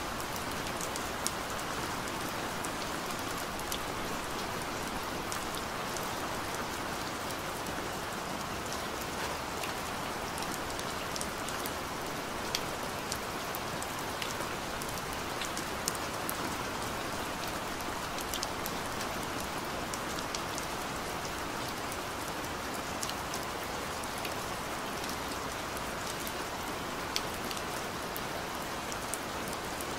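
Steady rain recording: an even hiss of rainfall with scattered sharper drop ticks throughout, used as the background bed of a subliminal track.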